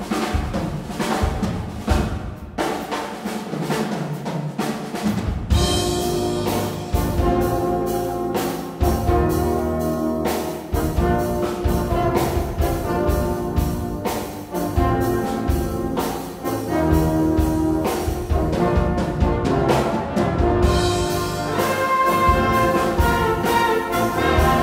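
A full brass band of cornets, horns, trombones, euphoniums and tubas plays a concert piece with percussion, including timpani. The accompaniment thins out briefly a couple of seconds in, then the full band comes back in.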